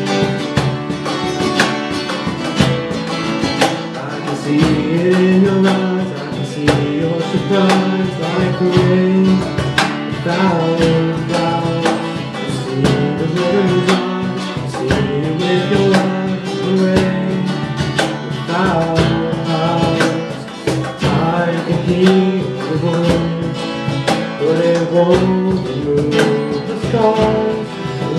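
Acoustic guitar song: several acoustic guitars strummed together, with a male voice singing the melody from about four seconds in.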